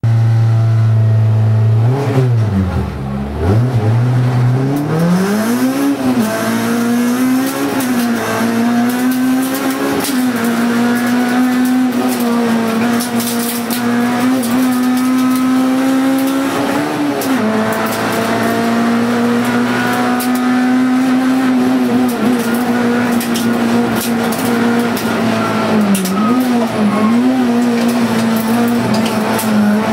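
Honda Civic Type R's four-cylinder engine heard from inside the cabin during a hillclimb run. It is held at steady revs for the first two seconds, drops sharply about three seconds in as the car pulls away, then climbs and runs hard at high revs, with brief dips and rises for gear changes and corners.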